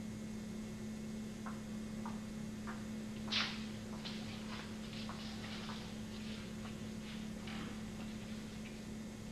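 Steady low electrical hum on an old video recording, with scattered light ticks and taps; one louder tap comes about three and a half seconds in, followed by a run of fainter ones.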